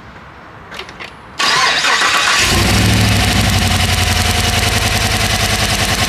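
A 2015 Chevrolet Silverado's 5.3-litre V8 is cranked by the starter about a second and a half in, catches about a second later, and then runs steadily. The engine has a known dead misfire on cylinder one.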